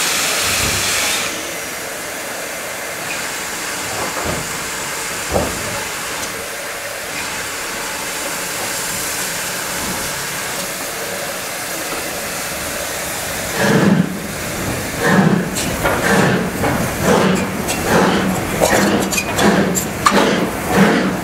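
Steam locomotive standing with steam hissing, louder for the first second. From about two-thirds of the way in it starts away with a run of exhaust beats that come faster as it picks up speed.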